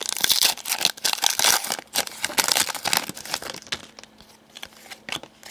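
Crinkling and tearing of a trading-card pack wrapper handled close up, a dense run of crackles that thins out after about four seconds to a few faint ticks.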